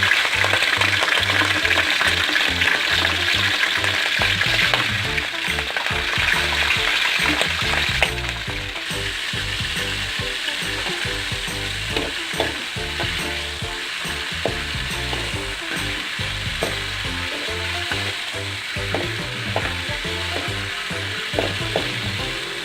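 Shrimp frying in hot oil: a steady loud sizzle with scattered pops and crackles, easing somewhat after about eight seconds.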